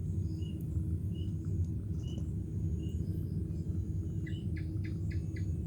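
Steady low rumble with a faint short chirp about once a second, then a quick run of about six chirps near the end.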